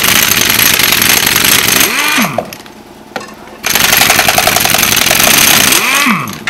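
Impact wrench hammering at a fastener on the mower's rear wheel in two long bursts of rattling, each trailing off in a falling whine as the tool spins down.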